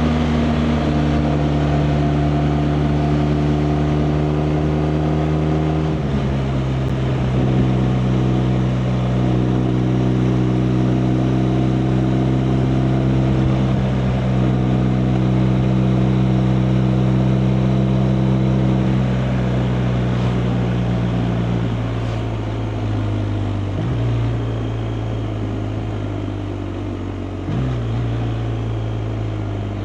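BMW R 1250 RT's boxer twin engine running under way, over wind and road noise. Its note drops sharply about six seconds in, holds steady, then falls away in the last third with two short blips in pitch.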